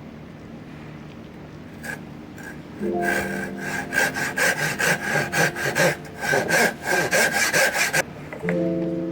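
Hand saw cutting wood in quick back-and-forth strokes, about two to three a second, that start about three seconds in and stop abruptly near the end.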